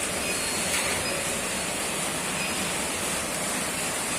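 Ducted mini split air conditioner running, with a steady rush of air from its blower fan.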